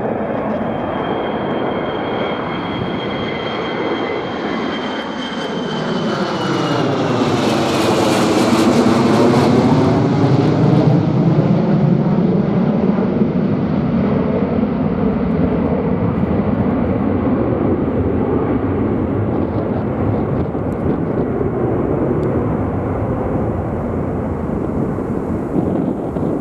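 Ilyushin Il-76MD's four Soloviev D-30KP turbofans at takeoff power as the aircraft passes by: a high whine that drops in pitch about eight seconds in, with the rumble loudest just after, then a steady, slowly fading rumble.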